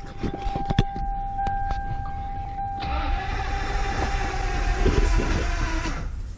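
Lexus LS400's 1UZ V8 being cranked on the starter without firing, under a steady high electronic warning tone. About three seconds in a hissing noise joins for about three seconds, as something in the car sparks.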